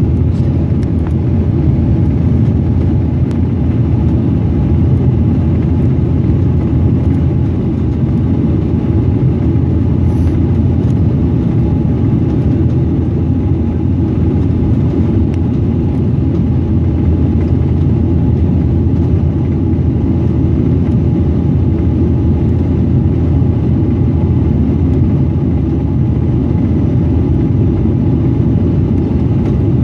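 Loud, steady low drone of a Bombardier Dash 8 Q400's turboprop engines and propellers inside the passenger cabin during approach, with the landing gear down. A few faint steady tones sit above the drone, which holds level throughout.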